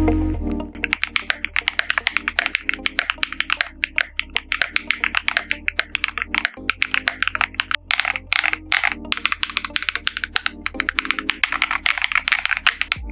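Rapid typing on a mechanical keyboard fitted with PBT double-shot Cherry-profile keycaps: a fast, uneven run of keystrokes, several a second, with a few brief gaps.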